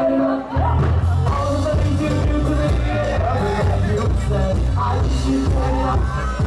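Loud dance music with a heavy bass beat and a singing voice; the bass drops back in about half a second in.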